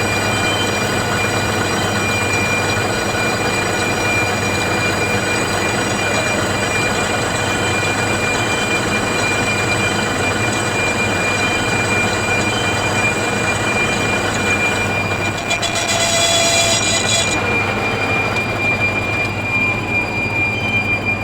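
A machine running steadily, with a continuous rushing noise and a high, steady whine. About two-thirds of the way through, a brighter, shriller edge joins it for a couple of seconds.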